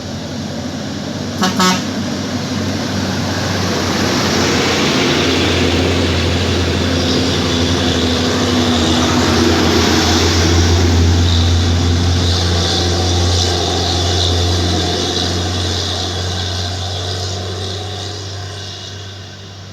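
Two quick horn toots about a second and a half in, then a heavy road vehicle's engine passing close by. It grows louder to a peak around the middle and fades away near the end.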